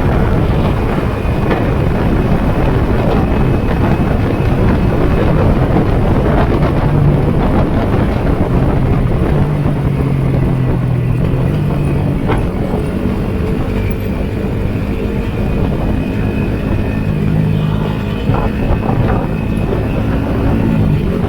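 Yamaha Sniper 150's single-cylinder four-stroke engine running on the move, its note shifting up and down several times, under heavy wind noise on the microphone.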